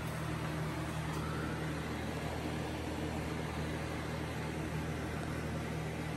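Steady low mechanical hum, an electric motor running, over an even hiss of moving air. It holds without change or break.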